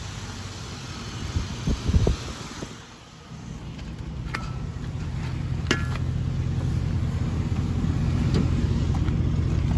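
A 2003 GMC Envoy XL's 5.3-litre V8 idling steadily, growing louder from about three seconds in. A few thumps come about one to two seconds in.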